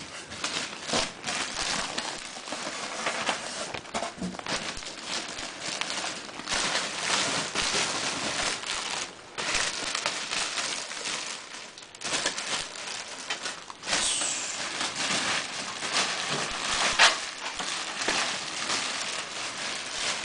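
Packaging being handled and crinkled while a computer case and its accessories are unpacked, a near-continuous rustling with a few short pauses and a sharp click about three-quarters of the way through.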